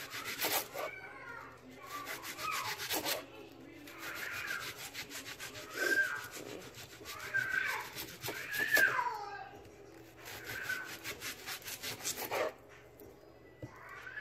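An onion being peeled and cut with gloved hands: dry onion skin crackling and rubbing in several short spells of rapid ticking. Faint, high-pitched cries can be heard in the background.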